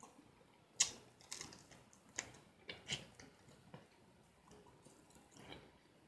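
Faint close-up eating sounds: a fried chicken wing picked apart by hand and chewed, heard as a scattered run of short, sharp mouth clicks and smacks.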